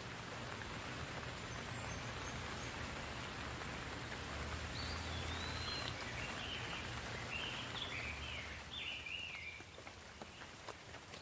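Rain falling steadily, a continuous hiss of drops that swells slightly in the middle. A bird chirps a quick series of high calls from about four seconds in, and a few sharp drip clicks come near the end.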